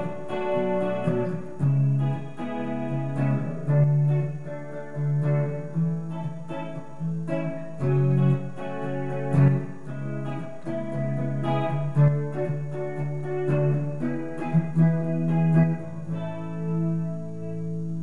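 Electric guitar, a Fender Player Telecaster with Noiseless pickups, played through an amplifier with the pickup selector in the middle position so both pickups are on. It plays a run of picked chords and single notes that ring into each other.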